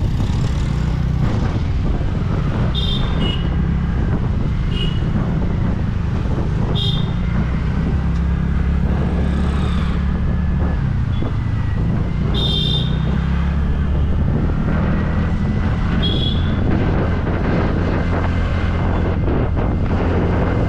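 A scooter riding through city traffic, picking up speed, with a steady low rumble of wind on the microphone and road noise. Several short, high-pitched vehicle horn beeps from surrounding traffic cut through it.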